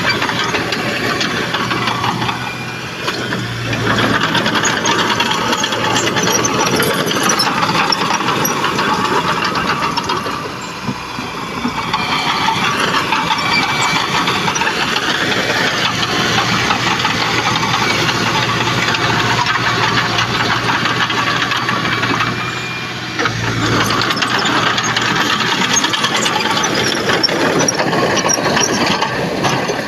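Diesel engine of heavy earthmoving machinery running steadily under work, with a low hum and clatter. The sound dips briefly three times.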